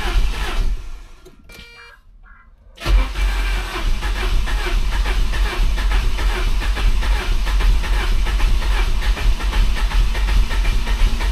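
A 1988 Saab 900 Turbo's four-cylinder turbo engine being started on a weak starter with a jump-start boost. After a brief lull, the engine sound comes in suddenly about three seconds in and carries on steadily, with a heavy low rumble.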